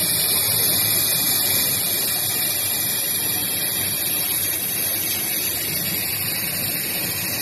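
Laser glass marking machine running: a steady machine noise with a strong, even high hiss and no change in pitch.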